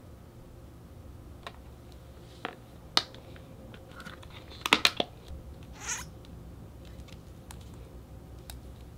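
An iPhone being pressed into a hard plastic Casetify phone case: scattered clicks and taps, then a quick run of sharp clicks about five seconds in as the case snaps on, followed by a short rub.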